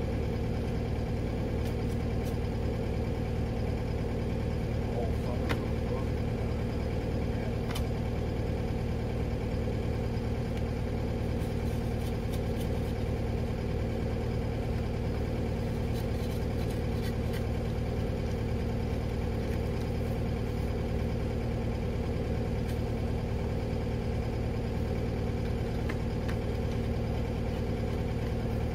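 Skid steer engine idling steadily, with a few faint knocks from a steel digging bar chipping at the side of a rocky post hole.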